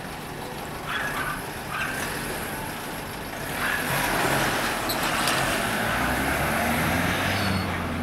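Van driving past close by: road and engine noise swells about three and a half seconds in and stays up, with a low engine note coming through near the end, over steady background street hum.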